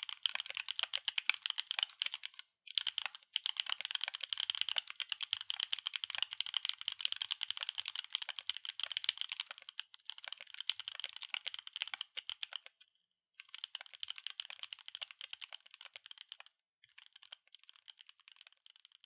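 Fast continuous typing on a mechanical keyboard with Gateron EF Curry linear switches, PBT double-shot keycaps and an aluminium plate: a dense run of key clacks. Brief pauses come about 2.5, 13 and 16.5 seconds in, and the strokes grow quieter near the end.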